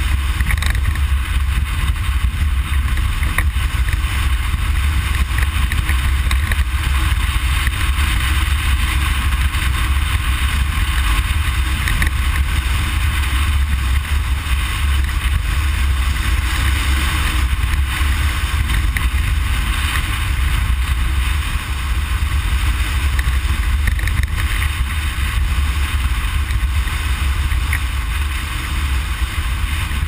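Ford Explorer prerunner driving fast on a dirt road, heard from inside the cab: a steady heavy rumble of engine and drivetrain under an even hiss of tyres on dirt and wind.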